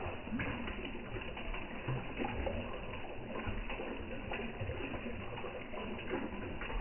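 Koi splashing and slurping at the water surface as they gulp floating food pellets, a busy, irregular patter of small splashes.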